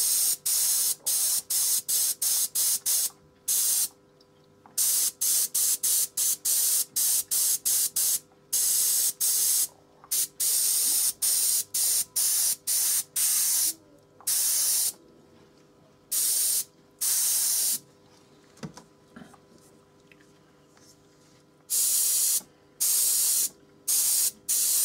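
Airbrush spraying in many short hissing bursts, switched on and off in quick succession, with a few longer sprays and a pause of a few seconds about three quarters of the way through.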